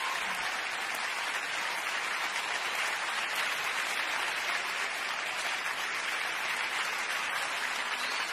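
Audience applauding steadily, a dense, even clapping with no music.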